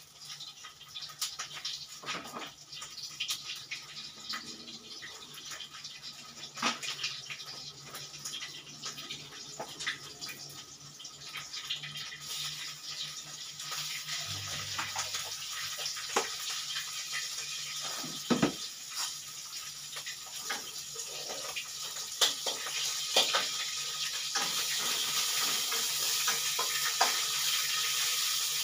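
Hot oil sizzling in a wok, a hiss that swells about twelve seconds in and grows louder again near the end, with scattered clinks of utensils against the pan.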